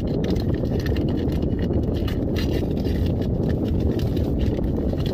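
Paper mailer envelope being torn and rustled open, in scattered crackles, over a steady low rumble.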